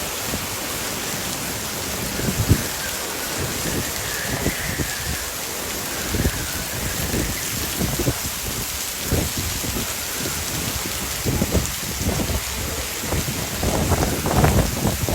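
Heavy rain pouring steadily, with strong wind gusts buffeting the microphone in irregular low rumbles that come thicker and louder near the end.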